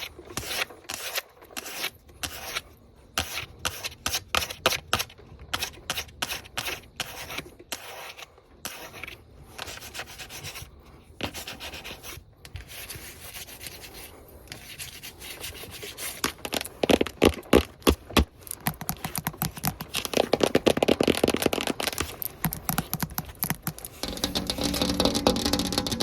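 Fast, aggressive scratching and rubbing with long fingernails against a hard surface, in rapid strokes that come thickest and loudest about two-thirds of the way through.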